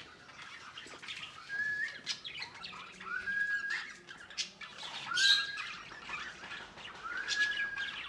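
Budgerigars and other small pet parrots calling in an aviary. A whistled call that rises and then holds level comes four times, about every two seconds, over quick chattering chirps.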